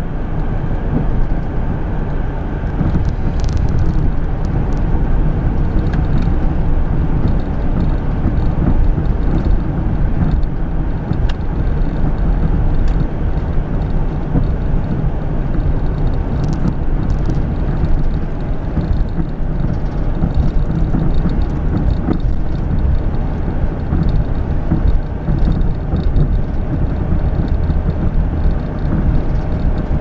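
Steady road and engine noise of a moving car, heard from inside the cabin.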